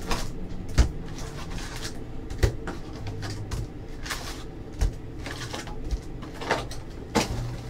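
Trading cards and packs being handled: a run of sliding, rustling swishes with a few sharp light knocks as cards and packs are set down on the table.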